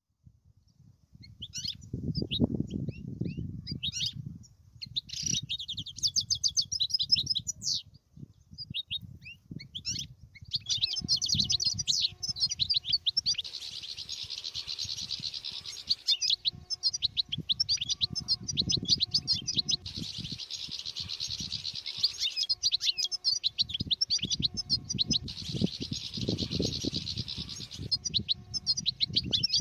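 European goldfinches twittering: quick high chirps and trills, scattered at first and near-continuous from about ten seconds in.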